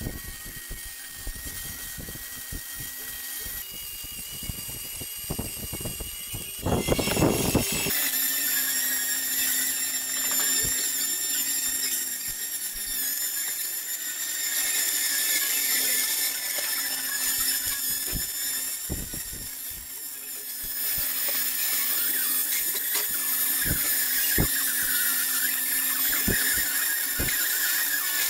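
Workshop noise in a pipe welding shop: a high-pitched power-tool whine with a steady low hum, scattered clicks and knocks, and a louder burst of noise about seven seconds in.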